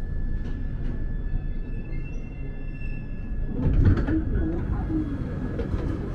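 Bakerloo line Underground train heard from inside the carriage: a steady low rumble with a faint steady whine, and a louder clatter about three and a half seconds in.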